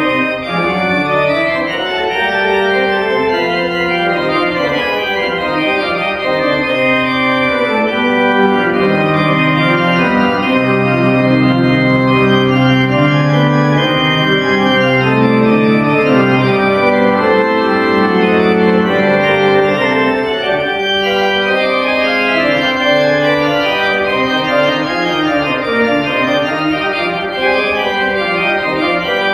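Schantz pipe organ playing, several held notes sounding together and moving from chord to chord at a steady volume.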